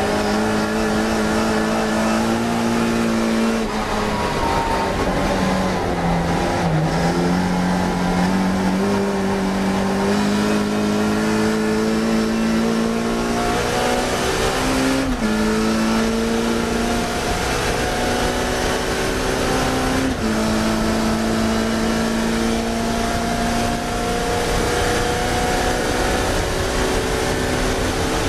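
Classic Mini's four-cylinder A-series engine at racing revs, its note climbing steadily through each gear and dropping back at several gearshifts.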